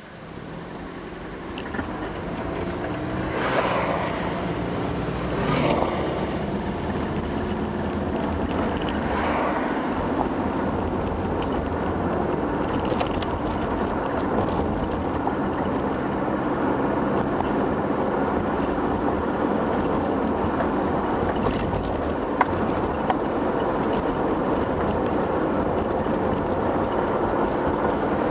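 Car driving, heard from inside the cabin: engine and tyre road noise building over the first few seconds as the car pulls away, then a steady rumble at cruising speed. A few rising-and-falling sweeps come in the first ten seconds.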